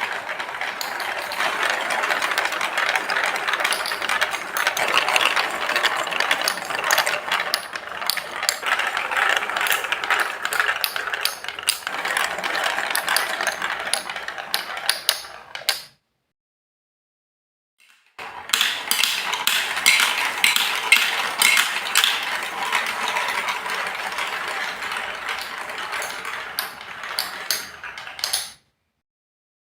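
Many marbles rolling and clicking along a Lego Duplo block track in a dense, continuous rattle. It breaks off suddenly for about two seconds midway, resumes, and cuts off abruptly shortly before the end.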